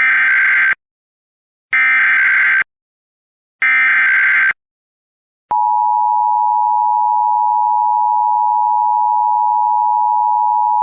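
Emergency Alert System activation tones. First come three harsh, warbling digital data bursts of the SAME header, each about a second long and about a second apart. About five and a half seconds in, the steady two-tone EAS attention signal (853 and 960 Hz together) begins and holds.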